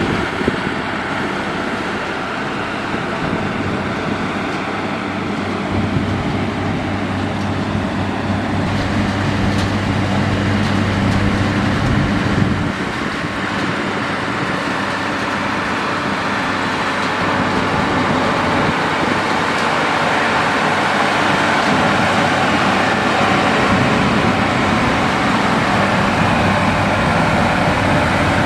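Heavy road-construction machinery working: diesel engines running steadily with a low hum, a little louder in the second half.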